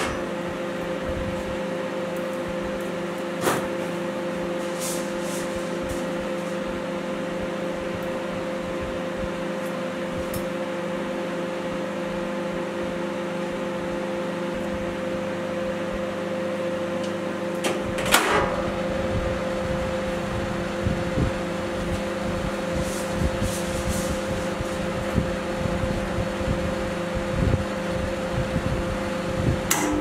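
Overclocked microwave oven, pushed to about four times its rated power, running with a steady multi-tone hum. A sharp click comes about 18 seconds in, after which a low, rough crackling buzz joins the hum.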